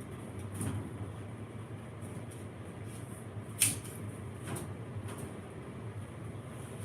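Steady low electrical-room hum, with a few light clicks and one sharp click a little past halfway, typical of hand tools handled during panel work.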